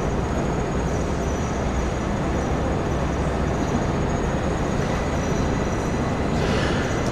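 Steady low rumble of background noise in a large sports hall, with a brief hiss about six and a half seconds in.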